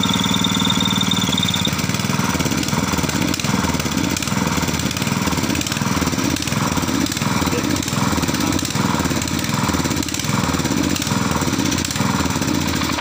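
Small single-cylinder four-stroke engine of a Daiho water pump running on LPG fed by hose from a 3 kg gas cylinder. After about two seconds its running turns uneven, swelling and dipping regularly about one and a half times a second.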